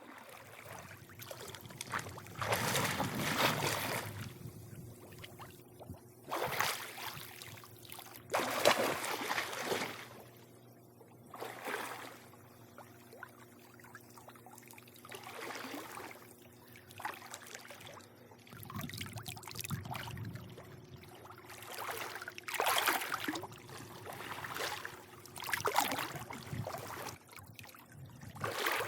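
Swimming-pool water lapping and sloshing in irregular surges every few seconds, the strongest about nine seconds in, over a faint steady hum.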